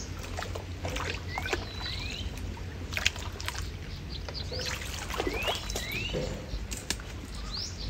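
Water sloshing and splashing with scattered clicks and knocks, as stems are handled in shallow water, while birds give short rising chirps at intervals throughout.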